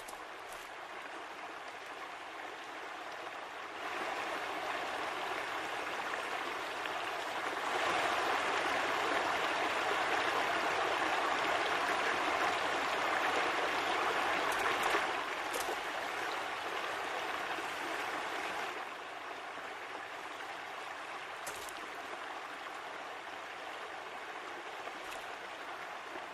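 Running water with a steady rush like a brook. It steps louder about 4 and 8 seconds in and falls back about 15 and 19 seconds in.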